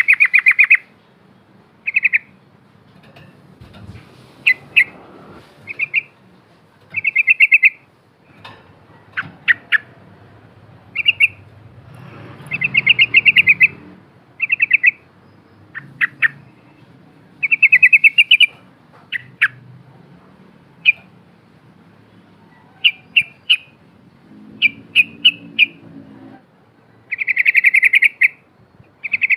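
Yellow-vented bulbul singing loudly: short bubbling phrases of rapid notes, each under a second, repeated every second or two.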